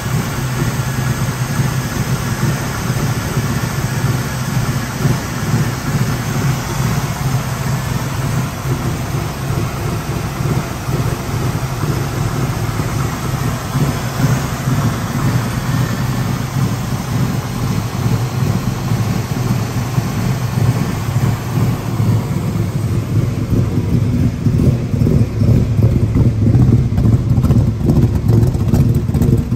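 1971 Ford Mustang Boss 351's 351 Cleveland V8 idling steadily with no revs. From a little past two-thirds of the way in it is heard at the dual exhaust tips, louder and deeper.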